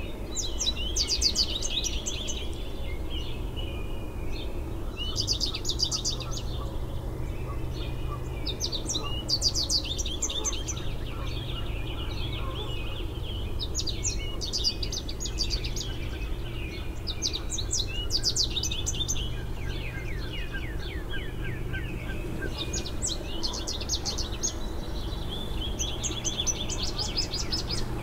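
A songbird singing the same kind of short phrase of quick high notes about every four seconds, over a steady low background hum.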